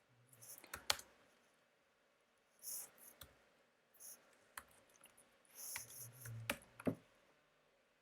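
Faint computer keyboard typing and mouse clicks: scattered keystrokes in short runs, with a few sharper clicks about a second in and near the end.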